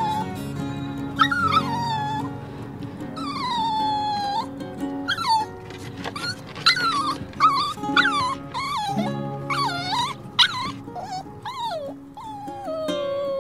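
Young puppies whining and whimpering: many high-pitched cries that slide down in pitch, one after another.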